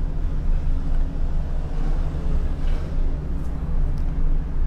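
A steady low mechanical hum with a faint hiss above it, and a couple of faint clicks in the second half.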